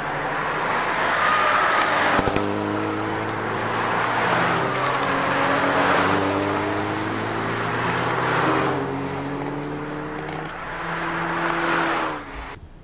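Hyundai Veloster N's 2.0-litre turbocharged four-cylinder accelerating hard on a race track, its pitch climbing and dropping back with each of several upshifts.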